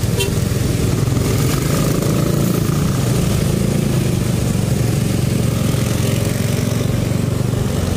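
Small motor scooter's engine running steadily as the rider moves off from a stop at an intersection, with other motorcycles close by. An even hiss of wind and traffic noise sits over it.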